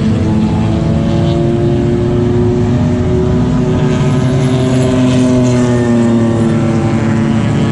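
Race car engine running steadily, its pitch rising slowly and easing back down about five seconds in.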